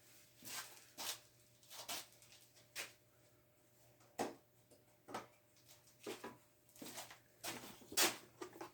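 A shop rag rubbing along a metal machine shaft: a run of short, faint swishes, about one or two a second, with the louder strokes near the end.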